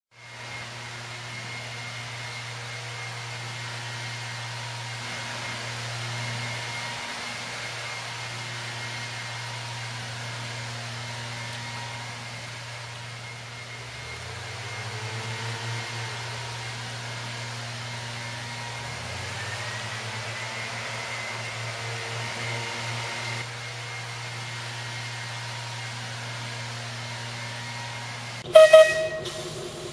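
Two-litre Perkins diesel engine of a 15-inch gauge steam-outline locomotive idling steadily, its pitch rising briefly twice around the middle. Near the end, a short, loud toot of the locomotive's horn.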